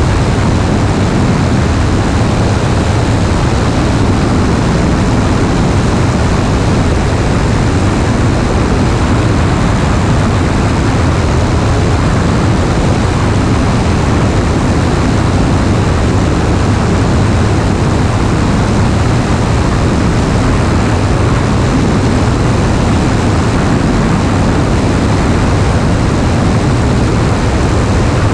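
Piper PA-28-161's four-cylinder Lycoming engine and propeller running steadily during the climb-out, a loud even drone with no change in pitch.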